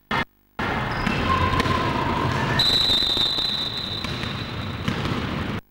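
Several basketballs bouncing on a gym floor as players dribble, the thuds echoing in the hall. The sound cuts out briefly just after the start, and a steady high tone is held for about two seconds midway.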